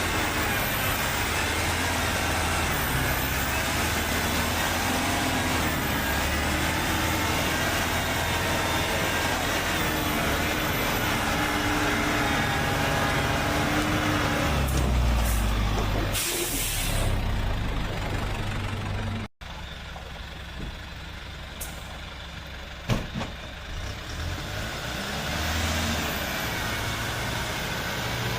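Heavy logging truck's diesel engine running with a wavering pitch, and a short hiss of air brakes past the middle. The sound then drops abruptly to a quieter engine, with one sharp click near the end.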